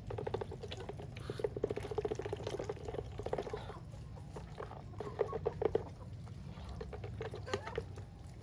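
Farmyard ducks and chickens calling: runs of quick, low quacks and clucks, with several calls overlapping.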